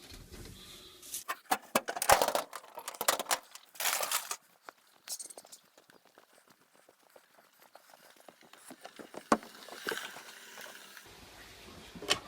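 Rustling and scratching in the straw of a wooden-lidded metal nesting box, with many small clicks and knocks, busiest in the first few seconds and then sparse.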